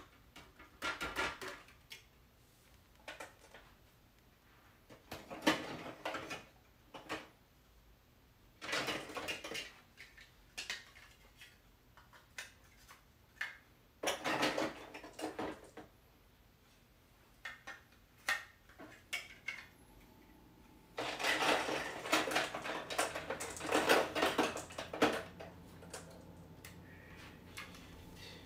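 Hard plastic Marbleworks marble-run pieces clattering as they are rummaged through in a plastic storage bin and clicked together, in bursts several seconds apart.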